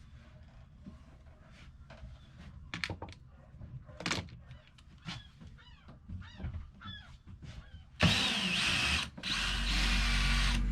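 Small knocks and clicks at first. About eight seconds in, a cordless drill starts running loudly with a wavering whine, cuts out briefly and starts again.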